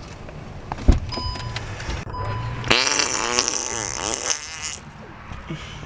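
Baby fussing in a car seat, with a whining cry of about two seconds near the middle whose pitch wavers up and down. There is a short thump about a second in.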